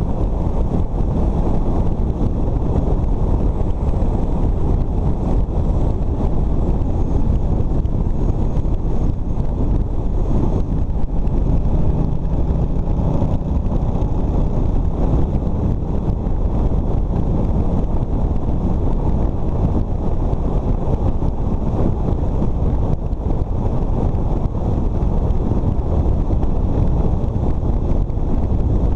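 Motorcycle riding at steady speed, heard as a loud, steady rush of wind buffeting the microphone, with the bike's engine and road noise underneath.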